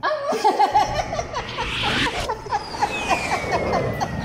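A woman and a little girl laughing together, a long run of quick, high ha-ha-ha pulses.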